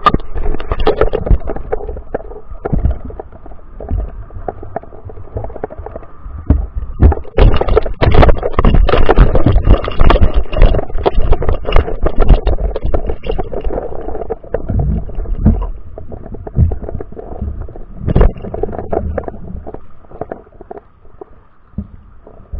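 Muffled underwater sound through a GoPro's waterproof housing: a low rumble of moving water with many irregular clicks and knocks, busiest in the middle, over a faint steady hum.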